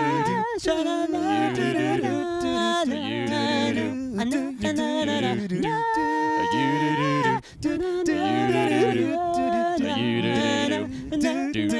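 A male vocal trio singing a cappella in three-part harmony with no instruments, holding chords with vibrato and briefly breaking off about two-thirds of the way through.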